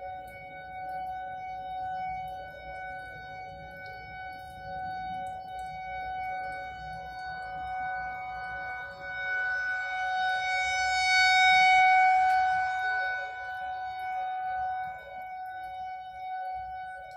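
Federal Signal 2001-130 rotating electromechanical outdoor warning siren sounding a steady tone, sounded for a severe thunderstorm warning with destructive winds. The pitch holds steady while the level swells to its loudest about ten to thirteen seconds in and falls back, as the rotating head sweeps past.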